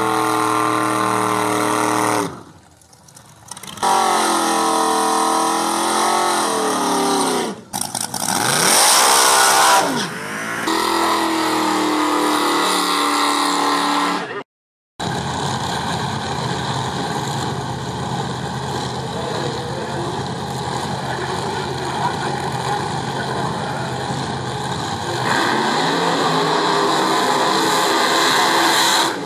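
Drag-racing cars doing burnouts one after another, several of them supercharged: engines held at high revs and revved up and down. The sound cuts off abruptly a few times.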